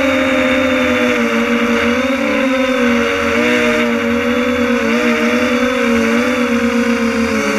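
Multirotor drone's electric motors and propellers buzzing steadily, heard close up from the camera on the drone. The hum is made of several close pitches that drift up and down a little as the rotor speeds adjust.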